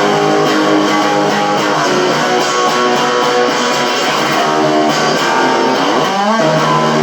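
Electric guitar through a Boss distortion pedal, playing a sustained chord riff, with a quick upward slide about six seconds in.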